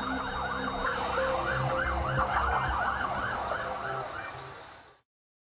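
Emergency-vehicle siren in a rapid yelp, its pitch rising and falling several times a second, fading away about five seconds in and then dropping to silence.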